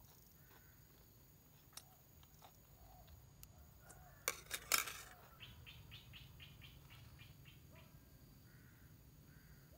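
Chopsticks clicking against a cooking pot, a few sharp knocks about four seconds in, followed by a bird's rapid chattering call of about a dozen quick notes; faint bird chirps come and go.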